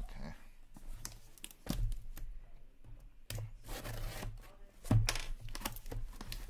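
Cardboard case being handled and cut open: sharp knocks and scrapes, and a stretch of tearing about halfway through, over a steady low hum.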